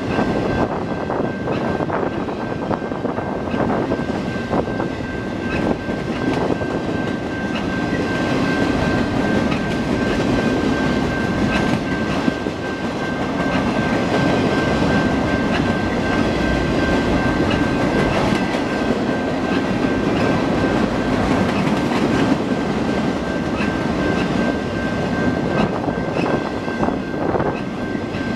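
Freight train's flatcars, loaded with wind turbine blades, rolling past: steady rumble of steel wheels on the rails with a clickety-clack over the rail joints. A thin, steady high tone sits under the rumble.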